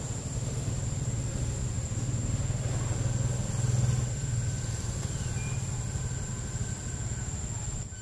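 A low steady motor drone, swelling a little around the middle, over a thin steady high whine.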